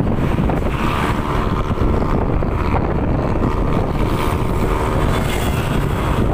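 Wind rushing over the microphone of a moving motorcycle, with the engine running steadily underneath.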